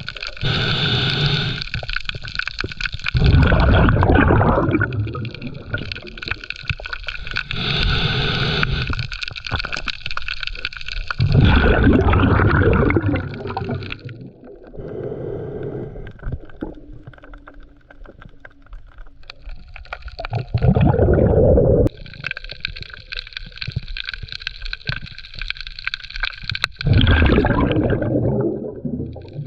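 Underwater gurgling from a diver's exhaled breath bubbling past the microphone. It comes in four bursts of two to three seconds each, about eight seconds apart, with a steady underwater hiss between them.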